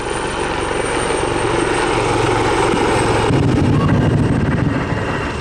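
AgustaWestland AW159 Wildcat helicopter flying past, its main rotor beating in a fast, even chop over the turbine noise. It grows louder to a peak about four seconds in as it comes closest.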